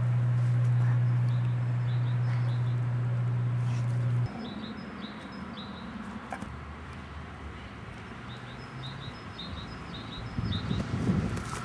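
Small birds chirping, short high calls in clusters, over a steady low hum that cuts off suddenly about four seconds in. Near the end comes a brief burst of louder low rustling and knocks.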